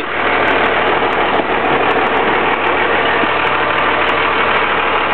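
12-valve Cummins turbo diesel idling steadily.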